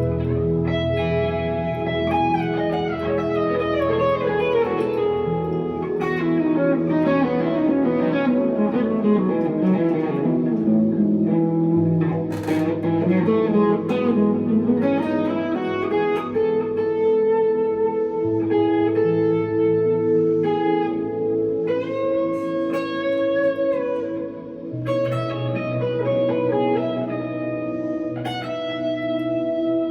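1963 Fender Telecaster electric guitar played through a valve amp with delay and reverb, sustained melodic notes over a held low note. About halfway through a run of notes slides down and then climbs back up.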